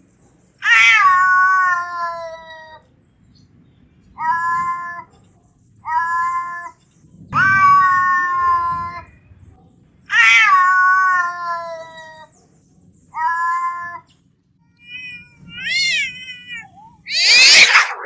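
A domestic cat meowing over and over, about eight drawn-out cries that each fall in pitch, some lasting about two seconds. A wavering call follows, then a louder, harsh, rasping cry near the end.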